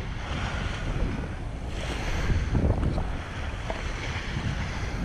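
Wind rushing over the microphone of a camera on a moving bicycle: a low, uneven rumble with a stronger gust of hiss about two seconds in.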